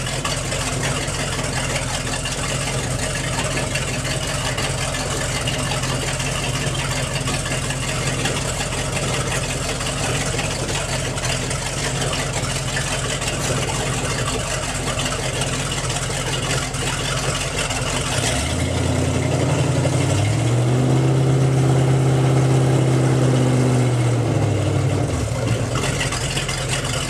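MerCruiser 7.4 L (454) big-block V8 idling through a Corsa Captain's Call exhaust. About two-thirds of the way in it is revved up, held there for a few seconds, then drops back to a steady idle.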